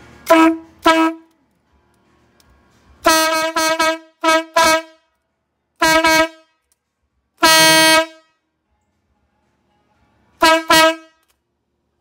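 Trendrun 'train horn' sounding a string of short, loud single-pitched blasts, in pairs and quick clusters with silent gaps, the longest about half a second a little past halfway. It peaks at 125 dB on a sound level meter, well short of its advertised 150 dB.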